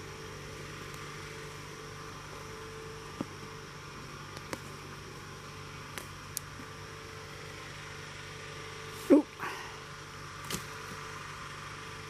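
Fallen sticks being picked up and handled in leaf litter: a few light snaps and clicks, then about nine seconds in a short, loud rising squeak. A steady low hum runs underneath.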